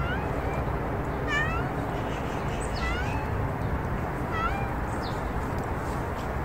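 A white-and-tabby street cat meowing: about five short, high meows, roughly one every second and a half.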